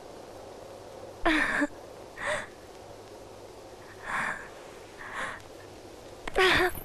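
A person's short breathy vocal sounds, five in all, coming in pairs about a second apart with the first of each pair louder.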